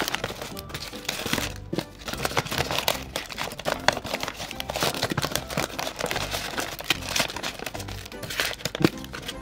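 Paper crinkling and rustling in quick, irregular crackles as a handmade paper blind bag is handled and folded shut, over background music.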